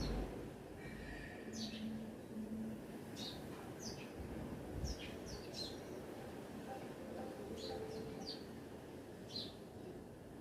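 Small birds chirping outdoors: short, high chirps that sweep downward in pitch, coming every second or so. A steady low background rumble runs under them, with a couple of brief low thumps.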